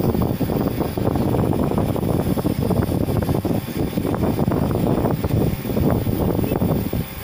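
Nebulizer compressor running steadily during a treatment, a loud continuous mechanical buzz with the hiss of the mist.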